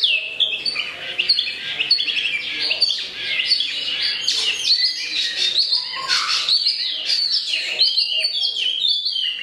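Wambi mini songbird singing a fast, unbroken song of high chirps and trills, many of them quick falling notes, its song filled with learned kenari Cililin canary phrases.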